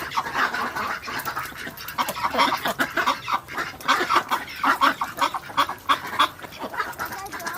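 A flock of birds calling continuously, many short calls overlapping one another.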